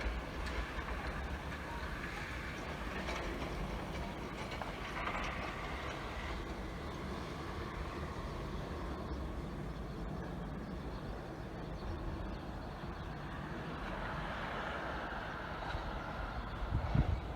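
Snowplow truck going by on a snow-covered street, its engine running steadily, with a low thump near the end.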